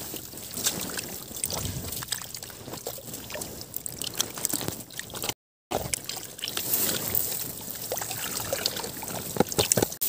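Hands sloshing and splashing through shallow muddy water, with small wet clicks and squelches, while fish are picked out of a drained paddy-field channel by hand. The sound cuts out for a moment a little past halfway.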